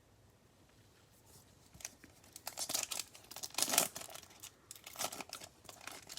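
Trading card pack wrapper being torn open and crinkled, starting about two seconds in as a run of irregular crackly rustles.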